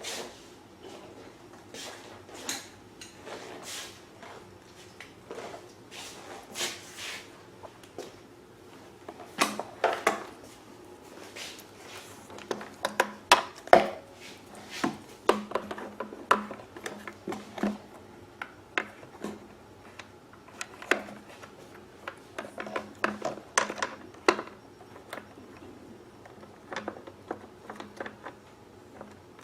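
Irregular metallic clicks, clinks and taps of hand tools and small parts being handled while working on a generator's fuel line and hose clamps, busiest in the middle, with a faint steady low hum under them.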